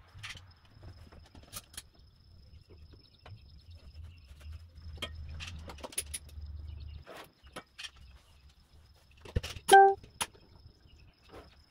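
Metal bar clamps clicking and clattering as they are set and tightened across a glued-up wooden box, with a louder clank and a brief metallic ring near the end.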